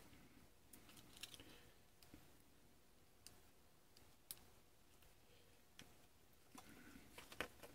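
Near silence broken by faint, scattered small clicks and taps as fingers handle a small circuit board and its plug-in cables (a USB cable and a two-pin battery connector). The loudest is a quick cluster of clicks near the end.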